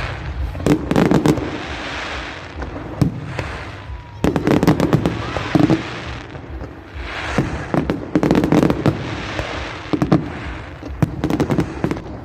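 Firework display: aerial shells bursting in several volleys of sharp bangs and crackling, with hissing swells between the volleys.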